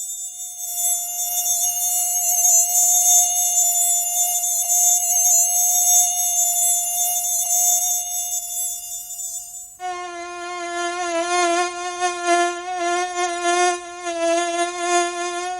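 Mosquito whine, as if close to the ear: a steady high-pitched whine with a slight waver. About ten seconds in it cuts abruptly to a lower, fuller buzz.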